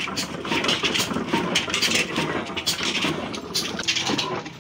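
Old stationary engine driving a mustard oil press, running with a steady rhythm of knocks and crackle as the press grinds the seed.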